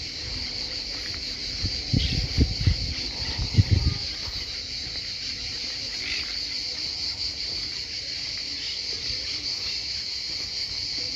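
Field ambience: a steady chorus of crickets, with a few faint bird chirps. Several low thumps come between about two and four seconds in.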